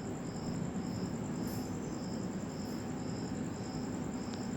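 Steady insect chirping in an even rhythm of about two high pulses a second, over a low background hum.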